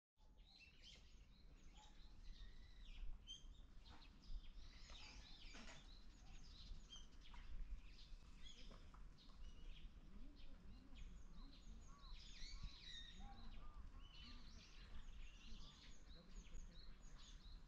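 Many small birds chirping and twittering, faint, over a low steady rumble.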